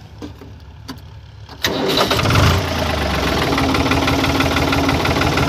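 New Holland 5500 tractor's diesel engine starting: a couple of clicks, then about two seconds in it catches with a low rumble and settles into steady idling.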